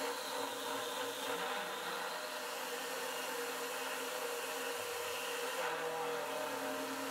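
Converted PM25MV CNC milling machine cutting aluminum with an indexable face mill: the spindle runs with a steady whine of several tones over a constant hiss from the mist-coolant spray. The tone shifts, with a lower hum joining, about six seconds in.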